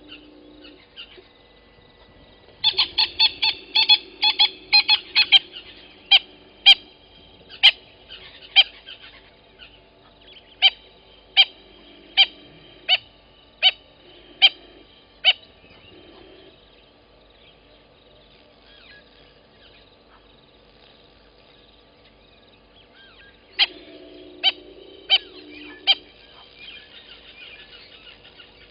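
A bird calling loudly in short, sharp, harsh calls: a rapid run of calls, then single calls about one a second that stop, and after a pause a short run of four more.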